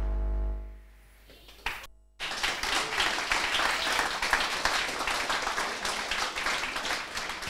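The held closing chord of a video's music, with a low drone, fades out over about a second; after a short pause an audience starts clapping about two seconds in and keeps up steady applause.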